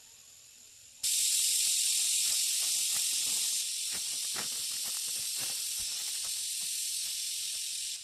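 A loud, steady high hiss that starts abruptly about a second in and eases slightly a few seconds later, with a few faint knocks under it.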